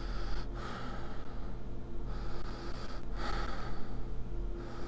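Animatronic mad-doctor figure's sound effect of slow breathing, drawn in and let out about three times, over a steady low electrical hum.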